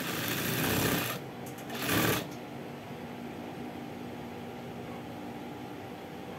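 Industrial sewing machine stitching in two short runs: about a second of sewing, a brief pause, then another half-second run. After that it stops.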